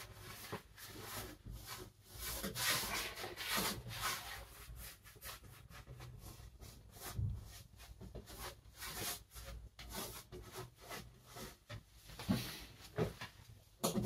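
Paintbrush rubbing oil paint onto the painting surface in many short, irregular scrubbing strokes.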